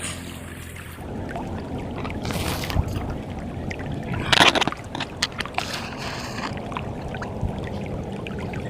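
River water flowing and sloshing, with scattered splashes and one louder burst about four and a half seconds in.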